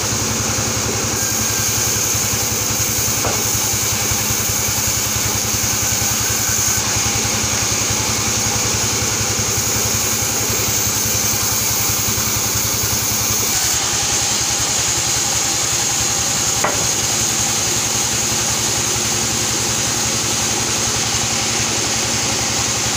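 Sawmill band saw running steadily: a constant machine drone with a high, even whine over it.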